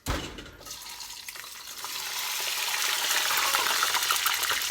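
Frozen potatoes sliding into hot cooking oil: a sudden thump as they go in, then sizzling that builds over about two seconds into a loud, steady crackle of spitting grease.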